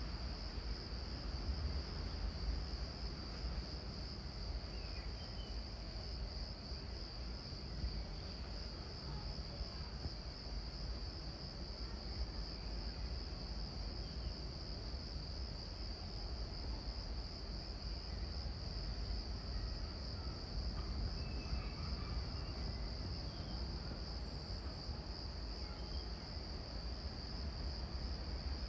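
Crickets chirring steadily in a continuous high-pitched band over a low background rumble.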